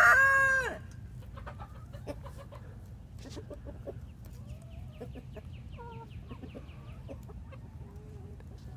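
A rooster crows loudly right at the start, the call falling off in pitch and ending within the first second. After that, chickens cluck softly here and there.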